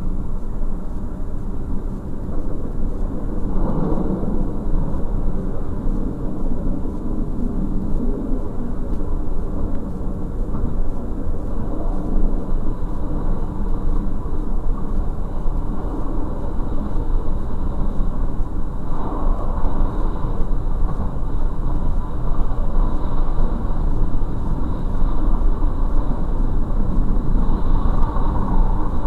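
Steady running noise of a DB class 628 diesel multiple unit heard from inside the driver's cab: a low rumble of the diesel engine and wheels on the track, growing a little louder over the stretch.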